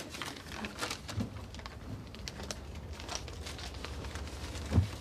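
Quiet room tone with a low steady rumble and scattered faint taps and rustles, and one soft thump near the end.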